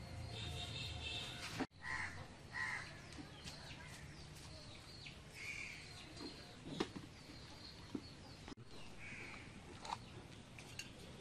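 Crows cawing now and then in the background, short calls spaced a few seconds apart, with a few light clicks and knocks between them.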